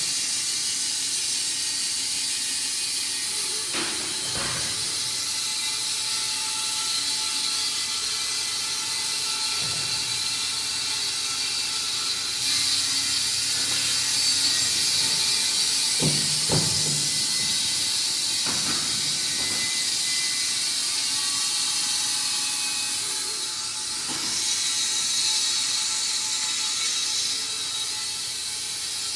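Industrial band sawmill machinery running with a steady hiss, with a few knocks and clanks.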